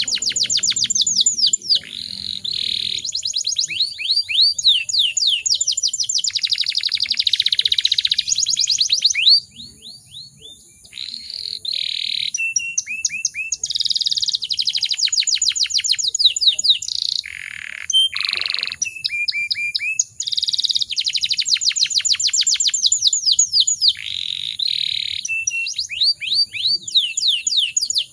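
Domestic canary singing a long, loud song of fast rolling trills: rapid runs of high sweeping notes, one phrase after another, with a short break about ten seconds in.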